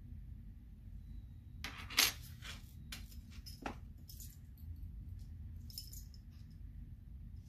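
Small metal jewelry charms clinking and clicking together as they are picked through by hand: an irregular string of light clinks, the loudest about two seconds in.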